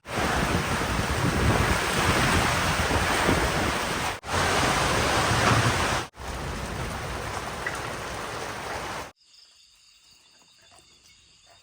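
Heavy rain pouring down, a loud, steady hiss made of three spliced clips with abrupt cuts between them. About three quarters of the way through it cuts off suddenly to a much quieter background.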